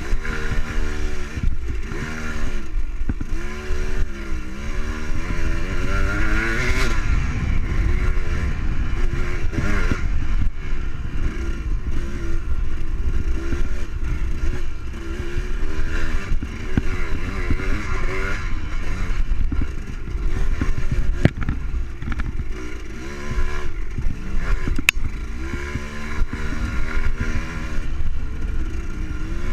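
Dirt bike engine revving up and down again and again as it is ridden hard along a rough woodland trail, with a few sharp knocks from the bike hitting bumps.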